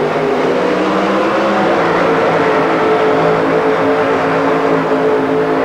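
Supercharged engine of a super modified pulling truck running at full power as it drags the weighted pulling sled down the track. Its pitch sags a little over the first two seconds, then holds steady.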